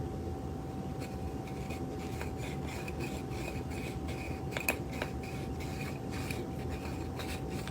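Intermittent rubbing and rustling with short clicks, over a steady hum and low background noise.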